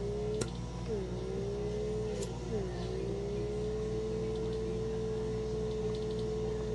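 Small electric suction motor of a handheld pore vacuum whining at a steady pitch. The pitch dips sharply and climbs back twice in the first three seconds, then holds level, with a couple of light clicks early on.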